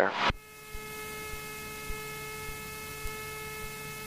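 Steady electrical hum with a high whine of several even tones, and faint low ticks about twice a second. The aircraft's engine itself is not plainly heard.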